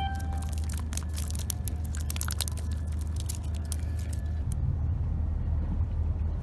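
Steady low outdoor rumble with a quick run of light clicks and taps over the first four seconds, after which only the rumble remains.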